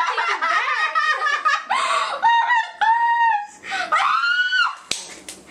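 Women squealing and laughing with excitement: high-pitched screams that slide up and down, several of them held for about a second. A sharp click near the end.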